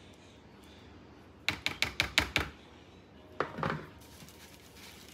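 A kitchen spatula knocking sharply against a dish about six times in quick succession, as filling is tapped off it, then one shorter clatter about two seconds later.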